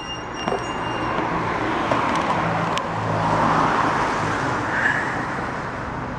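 Street traffic noise: a motor vehicle's engine hum and tyre noise swell about midway and then ease off.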